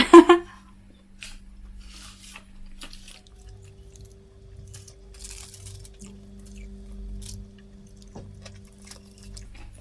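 Quiet chewing and mouth sounds while eating, with a few faint clicks, over a steady low hum.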